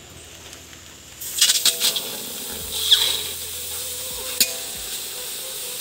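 Chicken pieces going into hot oil in a steel wok: a loud sizzle starts suddenly about a second in and carries on steadily. A few sharp knocks of a metal ladle against the wok come as it starts, and one more near the end.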